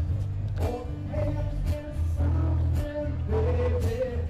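Background music: a song with a steady drum beat, heavy bass and singing.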